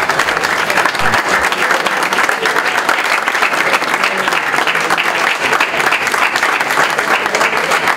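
Audience applauding: many hands clapping in a steady, dense patter that keeps up throughout.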